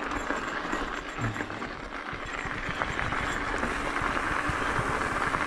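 Mountain bike rolling along a dirt singletrack: steady tyre and wind noise with frequent low knocks and rattles from bumps in the trail, picked up by a GoPro mounted on the rider or bike.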